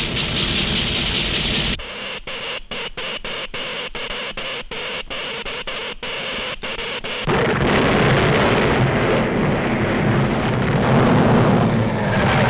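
Cartoon sound effects of electrical earthquake machinery: a loud electric hiss, then a stuttering crackle that cuts in and out about twice a second, then from about halfway through a loud low rumble as of an earthquake.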